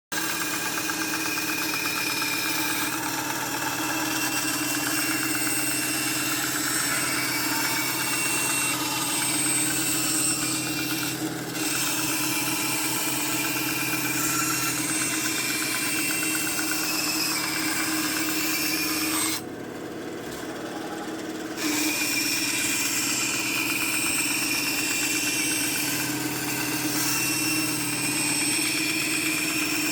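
Electric power tool motor running steadily as it cuts through thick Kydex sheet. The sound drops briefly about twenty seconds in, then comes back.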